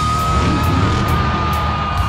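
Loud heavy rock music with a long held high note over driving drums.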